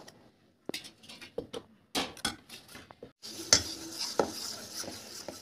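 A metal spoon stirs and scrapes thick cake batter in a stainless steel bowl, with separate clinks against the bowl's side. About three seconds in this turns into a denser, steady scraping with a few knocks.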